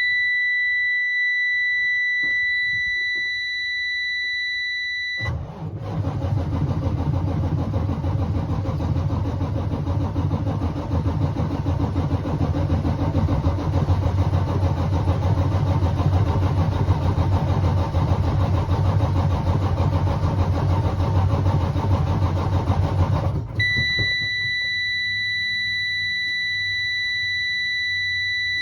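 A steady high-pitched warning buzzer sounds, then the starter cranks the Detroit Diesel Series 60 14-litre six-cylinder diesel for about eighteen seconds, a hard start, before the cranking stops abruptly and the buzzer sounds again.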